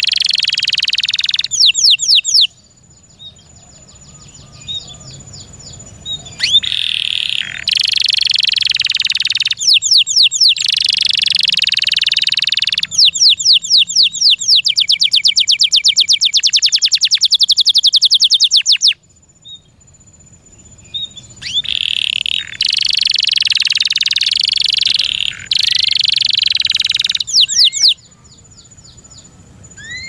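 Canary singing a long, loud song of buzzing rolls and fast trills of rapidly repeated notes, in phrases broken by pauses of a few seconds.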